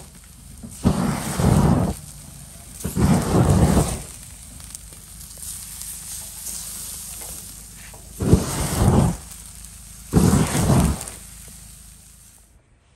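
Barg kebab grilling over a charcoal fire, crackling and sizzling steadily. It is broken four times by loud rushes of air, each about a second long, that rumble on the microphone. The crackle fades near the end.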